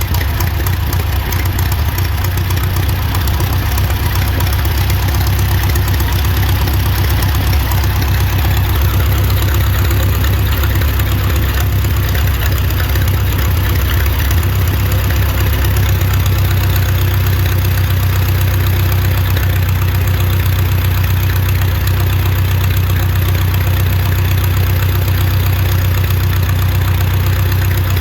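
1920 Allis-Chalmers 6-12 tractor's four-cylinder engine running steadily at idle, soon after a first good start once the wrong magneto impulse coupling parts were replaced.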